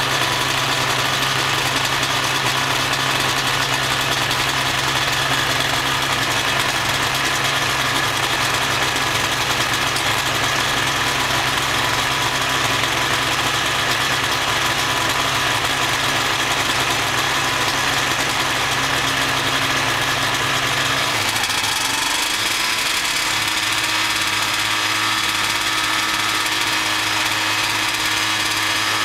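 Ultralight aircraft's pusher engine idling steadily, propeller turning. About three-quarters of the way through, the engine note shifts, with a rising tone, and settles at a new steady pitch as the aircraft begins to roll.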